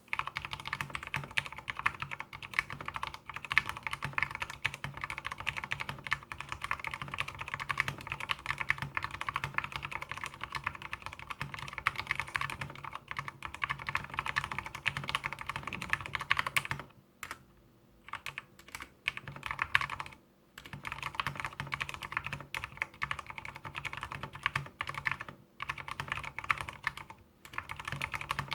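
Fast continuous typing on a mechanical keyboard with lubed Cherry MX Black linear switches and swapped springs (Teamwolf Zhuque), a dense run of key clacks with a few short pauses in the second half.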